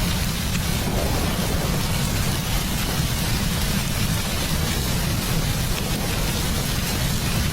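Heavy rain falling steadily, a dense even hiss with a constant deep rumble underneath.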